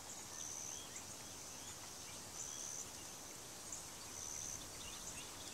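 Faint outdoor ambience: a steady low hiss with a short, high-pitched buzzing call that repeats about every two seconds, three times.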